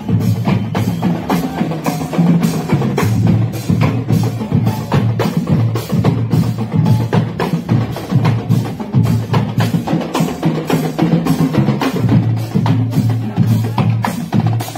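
Marching band playing on the march: snare and bass drums keep a steady, quick marching beat over sustained low brass notes.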